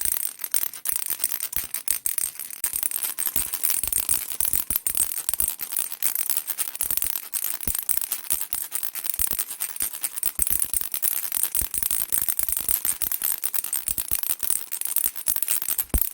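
A baby rattle shaken without a break: a dense, fast run of small, bright clicks.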